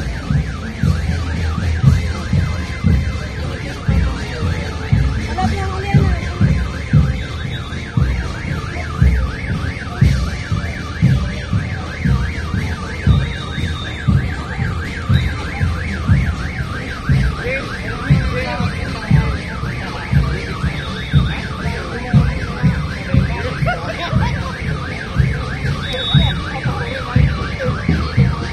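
A fast warbling electronic siren cycling up and down without pause, over a steady, heavy beat of parade drums.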